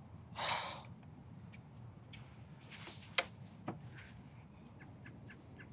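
A short breathy exhale, then two small sharp clicks and a few faint ticks over a low steady hum of room noise.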